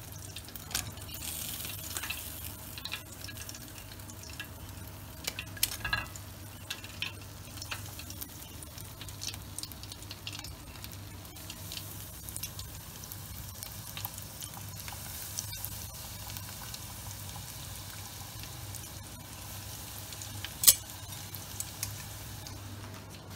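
Flour-coated chicken strips deep-frying in a pot of hot oil: a steady sizzle with scattered crackles. One sharp click near the end.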